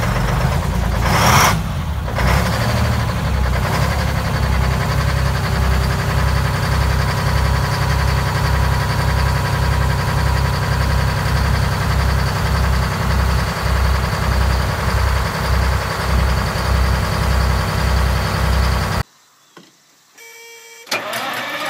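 Hayes HDX logging truck's Detroit Diesel engine running at idle with a steady, lumpy low pulsing beat, after a brief loud burst about a second in. Near the end the sound cuts off, and just before the end another diesel engine comes in.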